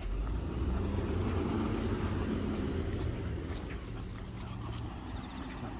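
A low, steady rumble that comes in suddenly and slowly eases off.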